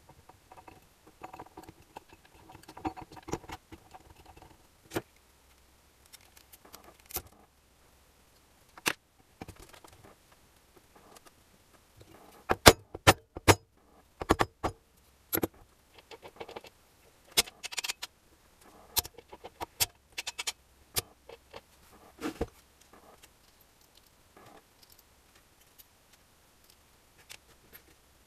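Scattered metallic clinks and knocks as an alloy crankcase half is fitted and seated onto an engine block, with a quick run of sharp, loud knocks about halfway through.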